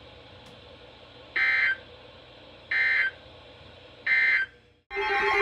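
NOAA Weather Radio's EAS/SAME end-of-message data bursts: three identical short, shrill warbling beeps about a second and a half apart, closing the severe thunderstorm warning. Just before the end, after a brief dropout, a louder buzzing data tone begins, the start of the next alert.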